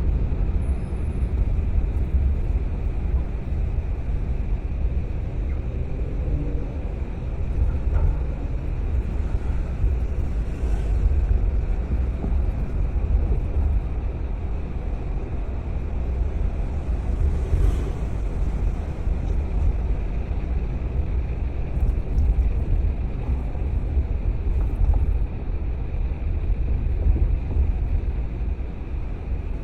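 Car driving steadily, with a continuous low rumble of road and engine noise.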